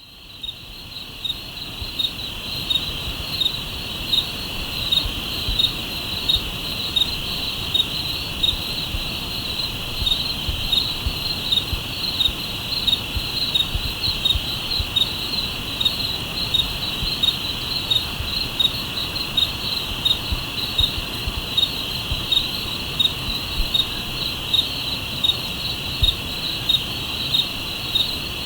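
A nighttime chorus of insects: a steady high-pitched trill with a sharper chirp repeating about twice a second, fading in over the first couple of seconds, over a low steady rush.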